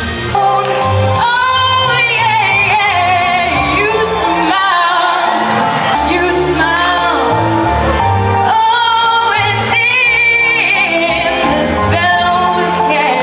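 A woman singing a slow melody into a handheld microphone, with held, wavering notes over instrumental accompaniment, amplified in a large reverberant hall.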